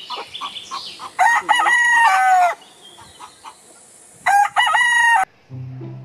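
Rooster crowing: a run of short clucks, then one long crow about a second in and a second, shorter crow about four seconds in.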